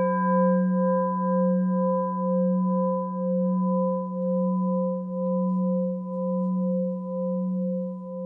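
A singing bowl rings on after a single strike, its tone wavering in a steady pulse and slowly fading.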